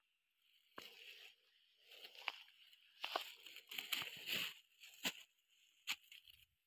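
Faint crinkling and rustling of plastic with several sharp crackles, from a plastic bag being handled as granules are scattered from it onto plastic mulch film around a papaya seedling.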